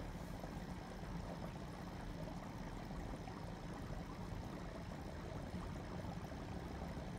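Aquarium filter running: a steady wash of moving water over a constant low hum.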